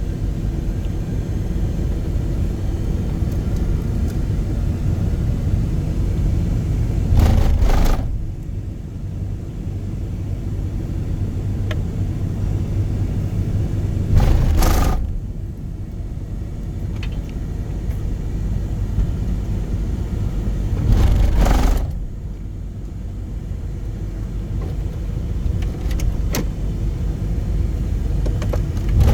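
Car driving: a steady low rumble of road and engine noise, swelling briefly three times, about seven seconds apart.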